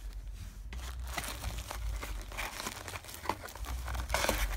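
Plastic wrapper of a U by Kotex Allnighter overnight pad crinkling and rustling as it is handled and pulled out of a cardboard sample box. The crackles are irregular, starting under a second in, with a louder flurry near the end.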